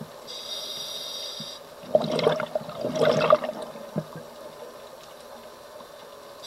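Scuba diver breathing through a regulator underwater. A short inhale with a high hiss comes near the start, then a loud gurgling rush of exhaled bubbles about two seconds in, lasting about a second and a half.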